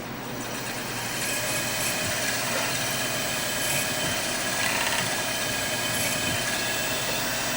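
Small milling machine spindle running as a worn drill bit, ground flat into an end mill, plunges to cut a flat-bottomed pocket for a knife's pivot bushing. It is a steady whine with several high tones, building up about a second in.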